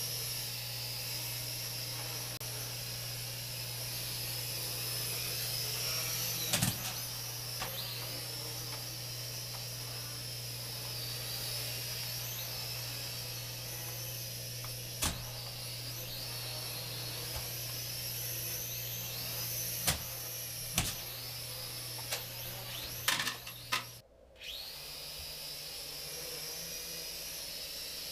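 Small toy quadcopter drone flying, its tiny motors and propellers giving a high, wavering whine. Several sharp knocks come through it, and near the end the whine cuts out for a moment and starts again.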